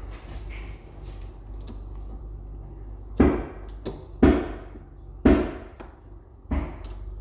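Four sharp knocks against the door's old lock hardware, about one a second, each ringing briefly, as it is tapped to push it out of the door.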